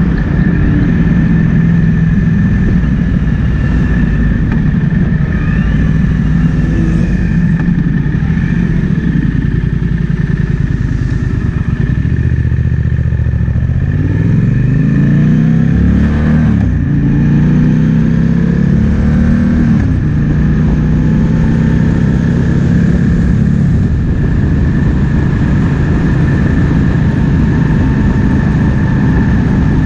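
Triumph Speed Twin 1200's parallel-twin engine running at road speed with wind rushing past. About halfway through the engine pitch climbs, drops sharply and climbs again, then settles back to a steady run.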